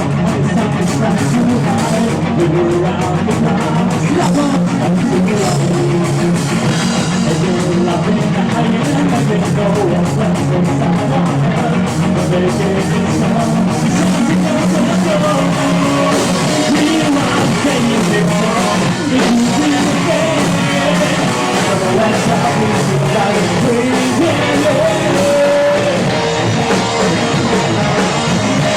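Live rock band playing: electric guitars, bass and drum kit, with singing in places.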